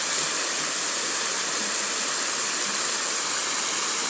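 Flowing river water rushing steadily, an even, unbroken hiss.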